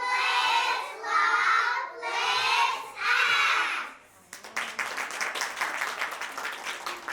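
Children's voices speaking or chanting a line, then, about four seconds in, an audience clapping.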